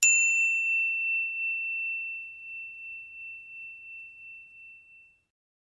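A single struck metallic chime: one high, clear ding that rings out and slowly fades away over about five seconds.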